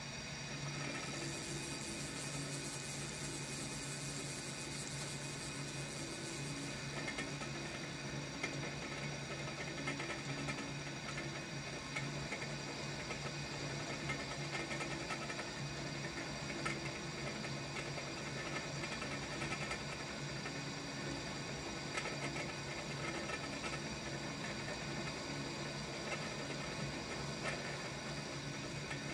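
Milling spindle of a 1998 Shoptask XMTC lathe-mill combo running steadily, with a boring head spinning and its cutter boring out the hole in a metal ring; a steady motor hum carries several steady tones, with a few faint ticks.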